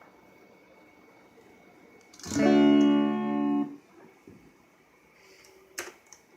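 A plucked-guitar-like musical note rings for about a second and a half, then stops. It is a sound effect being auditioned during editing. A single sharp click follows near the end.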